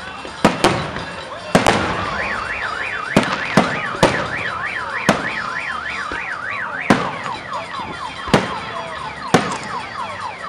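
Aerial fireworks shells bursting with sharp bangs, about eleven of them at irregular intervals. Under them a car alarm warbles up and down a couple of times a second, then switches to repeated falling chirps about seven seconds in.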